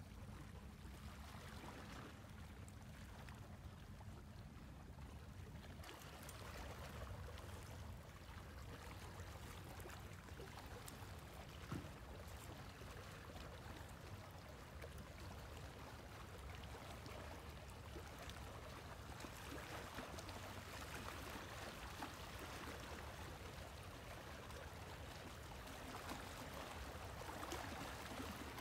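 Faint, steady lapping of sea water against the rocks over a low rumble, with one sharp click about twelve seconds in.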